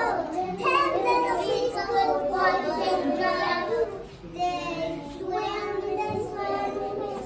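A group of young children singing a song together, with a short lull about four seconds in.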